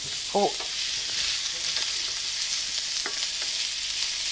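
Diced bell peppers, garlic and ginger sizzling in hot oil in a frying pan while being stirred with a wooden spatula: a steady frying hiss, with faint scrapes of the spatula.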